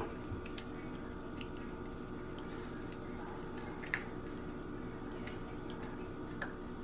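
Raw lobster tail shell clicking faintly as fingers pry the meat loose from inside it, with a sharper click about four seconds in, over a steady faint hum.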